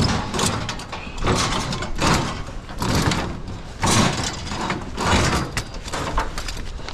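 Scrap items being loaded into a trailer: a run of scrapes and clattering knocks, roughly one a second.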